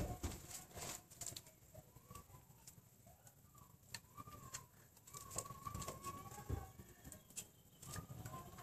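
Faint clicks, taps and scrapes of a cat's paw and tongue on a plastic yogurt cup as it scoops and licks yogurt, with a few soft knocks. Faint bird calls sound in the background.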